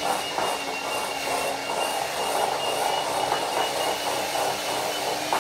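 Handheld electric mixer running steadily, its beaters whisking egg yolks, sugar and mascarpone into a cream in a glass bowl, with a constant high motor whine.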